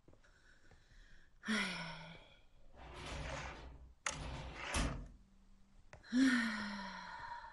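A woman sighing heavily twice, each a voiced sigh that falls in pitch, with a breathy exhale between them. Two short knocks come about four and five seconds in.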